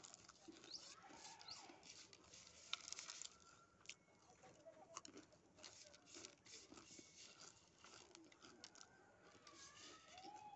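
Faint crunching and crackling of Lay's potato chip crumbs being chewed and picked off a plate with the fingers, a scatter of small irregular clicks.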